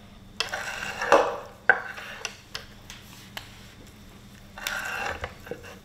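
Chef's knife slicing raw stingray wing meat into strips on a wooden cutting board: two drawn slicing strokes, one about half a second in and one near the end, with several sharp knocks of the blade on the board between them.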